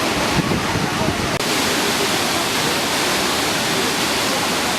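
Waterfall cascades rushing in a steady, loud roar of falling water. Wind buffets the microphone with a low rumble until a brief break about a second and a half in, after which the water sound is smooth and even.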